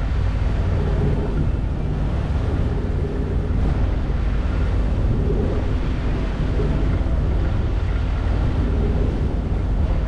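Volvo Penta D2-75 marine diesel running steadily under load, driving the yacht at close to its top speed, with wind buffeting the microphone and water rushing along the hull.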